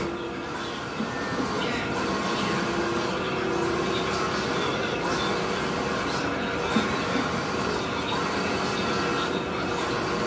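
Mimaki CJV30 wide-format eco-solvent inkjet printer printing a banner. Its print-head carriage sweeps back and forth with a steady mechanical whir, one pass about every one and a half seconds.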